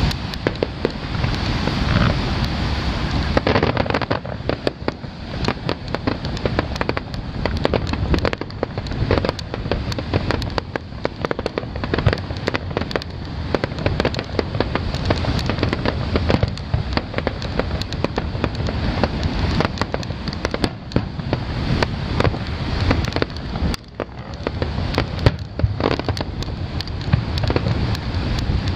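Fireworks display: a dense, continuous string of pops and cracks from many small shells bursting, over a steady low rumble.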